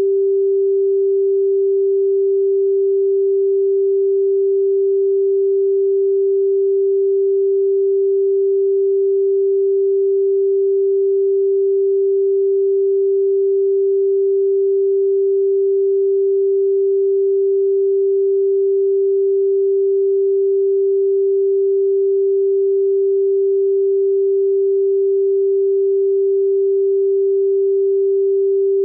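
A steady pure sine tone at 392 Hz, the pitch G above middle C, held unchanged at one constant level.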